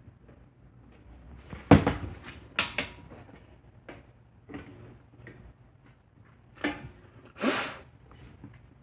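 Several sharp knocks and clatters, the loudest about two seconds in and two more near the end, with light ticks between: hard objects being handled and set down.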